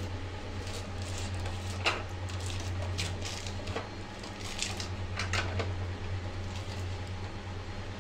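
Scattered light clinks and taps of steel kitchen vessels and containers being handled, the sharpest about two seconds in, with others around the middle, over a steady low hum.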